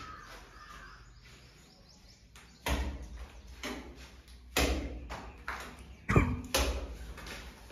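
Steel plastering trowel scraping and knocking in a bucket of wet cement plaster: a run of short scrapes about once a second, the loudest near the end.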